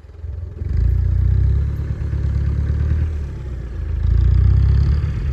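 Land Rover Defender's engine pulling the vehicle slowly over grass, a low rumble that swells twice with a brief easing between.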